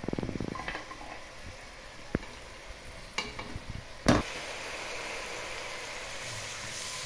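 Chopped tomatoes and parsley sliding out of a nonstick frying pan into an aluminium pot, followed by a few sharp knocks of the pan against the pot. The loudest knock comes about four seconds in, and a steady hiss follows.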